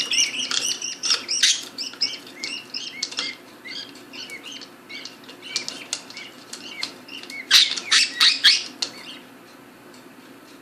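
Budgerigars chirping in quick, repeated calls, with a louder flurry of calls about eight seconds in; the chirping stops about a second later.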